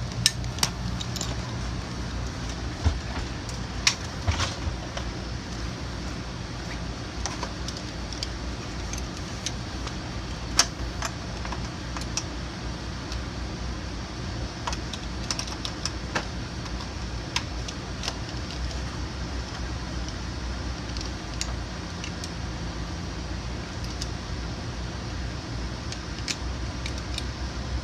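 Metal buckles and clips of a Pedi-Mate child restraint clinking and clicking now and then as its straps are fastened to an ambulance stretcher frame, over a steady low hum.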